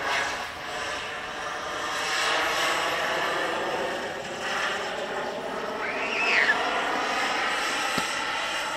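Radio-controlled Eurofighter-style model jet flying past, its engine a steady rushing whine that swells and fades and shifts in pitch as it passes, with a brief arching whine about six seconds in.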